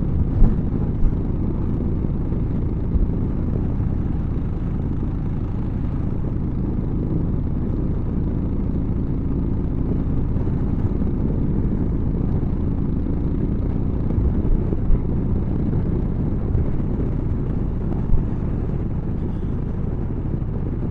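Motorcycle riding along at a steady pace: an even low rumble of engine and wind noise, with a few brief knocks near the start.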